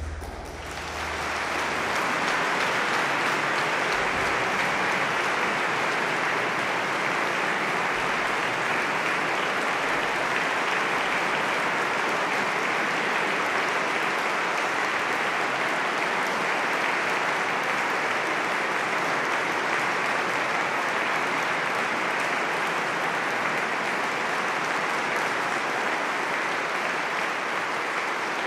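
Audience applauding steadily after an organ performance, with the last organ chord dying away in the first second or two.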